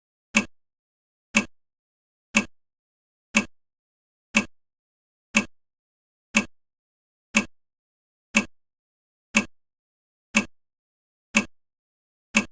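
Clock-tick sound of a countdown timer: a short, sharp tick once every second, perfectly even, marking the seconds as they count down.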